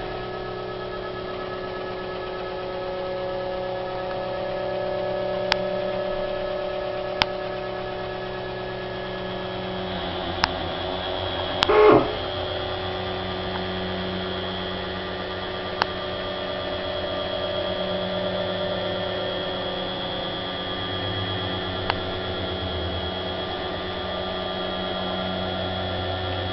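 CNC machine's Y axis drive running, moving the axis along its travel at about 100 inches per minute: a steady whine of several tones with a few faint clicks. A brief louder clatter comes about twelve seconds in, then the axis keeps running.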